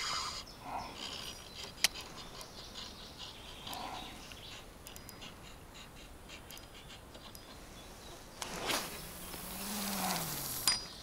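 Long cast with a feeder rod: a hiss of about two seconds as line runs off the spinning reel's spool, ending in a sharp click near the end. Before it come a few small handling clicks.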